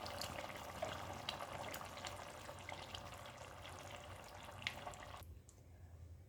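Thick pulimunchi masala gravy with sardines bubbling in a pan, a faint steady hiss scattered with small pops, which cuts off about five seconds in.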